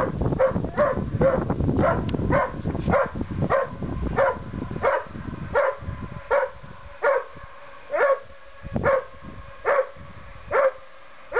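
A dog barking over and over in an even rhythm, at first about two barks a second, slowing to just under one a second in the second half. Wind rumbles on the microphone through the first half.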